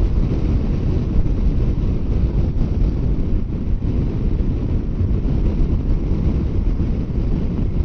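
Heavy wind noise buffeting the microphone of a motorcycle at highway speed, about 60 mph: a steady, dense low rumble with no let-up.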